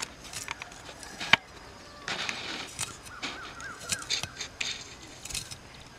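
Small onions being peeled by hand, their papery skins crackling and clicking, with one sharp click about a second in. A bird chirps a quick run of warbling notes around the middle.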